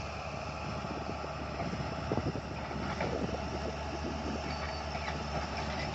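Komatsu PC200 excavator's diesel engine running steadily, with a cluster of metal clanks and knocks about two to three and a half seconds in as the tracked machine works its way down off the truck.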